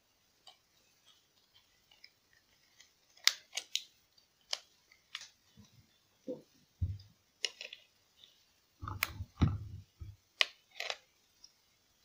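Irregular plastic clicks and snaps as a TV remote control's case halves and rubber keypad are pressed back together, with a few duller knocks of the remote against the table.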